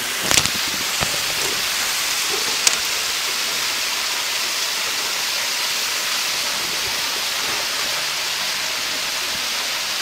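Waterfall and stream water rushing in a steady, even hiss, with a couple of short clicks or knocks in the first three seconds.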